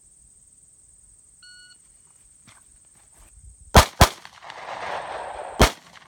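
Shot-timer start beep, then three 9mm pistol shots from a Smith & Wesson M&P9 Shield: two fired about a quarter second apart, then a third about a second and a half later after the shooter moves off the spot.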